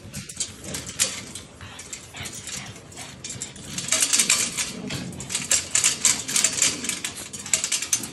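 Dogs scuffling in rough play, a dense run of clicks, scratches and rattles from claws and a wire dog crate, with some dog noises mixed in. It grows busier and louder from about halfway through.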